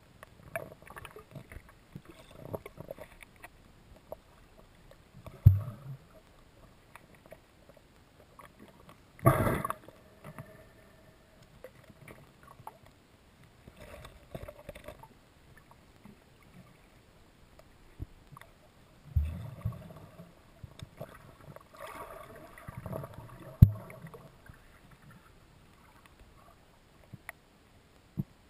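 Water movement and handling noise picked up by a camera filming underwater: a low, irregular rustle broken by a few muffled thumps, the longest about nine seconds in.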